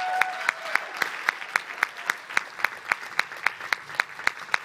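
Audience applauding, with one loud clapper close by keeping a steady beat of about four claps a second. A held cheer ends just after the start.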